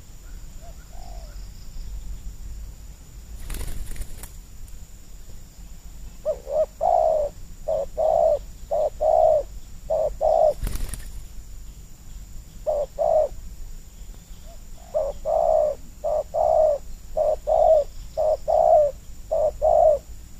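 Spotted dove cooing: two runs of short, low coos repeated in quick succession, the first starting about six seconds in and the second after a short pause. Two brief rustles of noise come before and between the runs.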